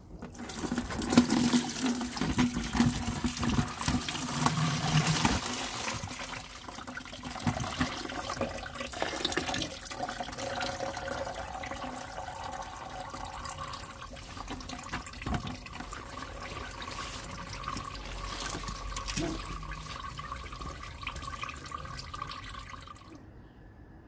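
Engine coolant pouring and splashing from a disconnected radiator hose and the radiator into a drain tray, heaviest in the first few seconds, then a steadier flow that cuts off abruptly near the end.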